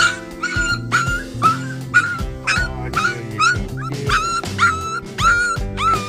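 A three-week-old puppy crying in a steady run of high whimpering yelps, about two a second, each rising quickly then holding its pitch. Background music plays underneath.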